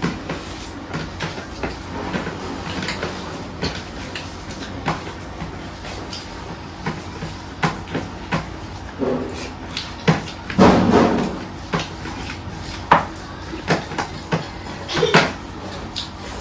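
Eating sounds: scattered clicks and knocks of a plate and utensils as food is taken, with a louder, longer sound a little past the middle.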